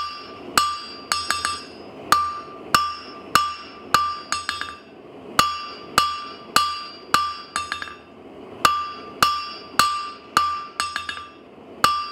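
Blacksmith's hammer striking square bar stock on a steel anvil in a steady rhythm of roughly one and a half to two blows a second, each blow ringing out with a clear anvil ring. Between groups of a few blows come lighter clinks as the bar is rotated, with brief breaks in the rhythm.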